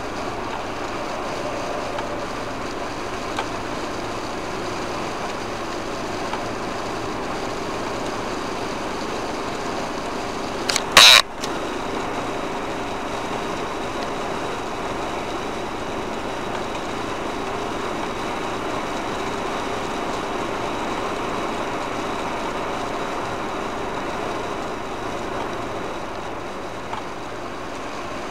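Steady in-cab noise of a vehicle driving at about 110 km/h on a wet motorway: engine and tyre noise without change. About eleven seconds in there is one short, loud burst.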